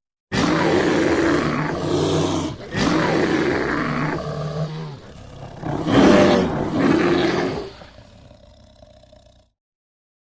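Bear roaring: three long, rough roars in a row, the last trailing off into a weaker growl that dies away about nine seconds in.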